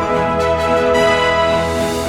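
Soundtrack music: sustained, layered chords with a steady low bass, a rising whoosh swell near the end leading into a new chord.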